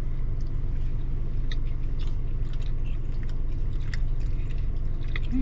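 Two people chewing bites of a soft frosted lemon cookie, with scattered small, wet mouth clicks. A steady low hum runs underneath.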